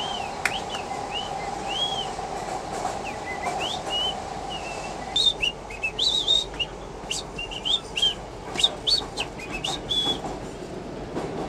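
Quick, short whistled notes, many of them arching up and back down, over the steady rumble of a moving subway car. A steady motor hum from the car fades out about halfway through.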